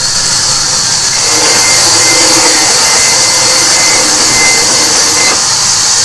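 Sawmill band saw running and cutting through a timber plank: a loud, steady hiss of the blade, with a thin high whine that joins about a second in and stops about five seconds in.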